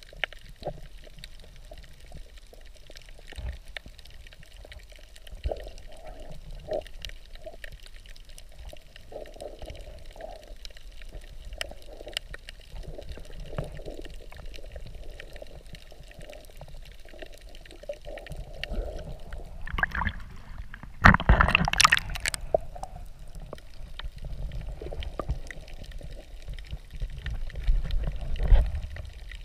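Underwater sound picked up by a camera held below the surface: muffled water movement and gurgling with scattered small clicks, and a louder rush of noise lasting about a second and a half, a little past two thirds of the way through.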